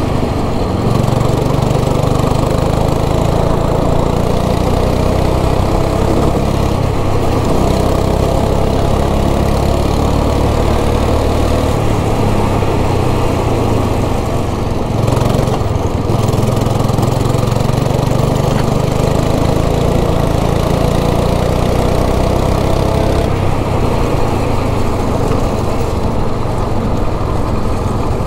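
Kart engine running hard under the driver, heard onboard, a steady drone that eases off briefly about halfway through and shifts again near the end.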